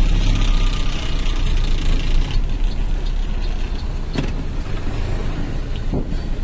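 Truck's diesel engine and tyre noise heard from inside the cab while driving: a steady low rumble, with two brief knocks about four and six seconds in.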